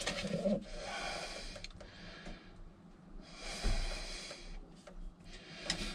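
A man breathing heavily through his nose: two long, noisy breaths, the first about half a second in, the second about three seconds in.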